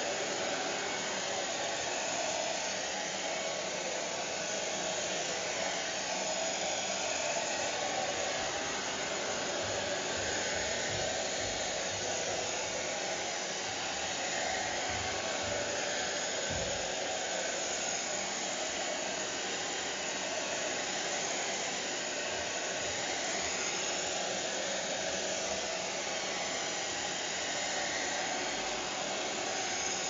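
Hair dryer running continuously at a steady speed: an even rushing blow of air and motor noise that does not change.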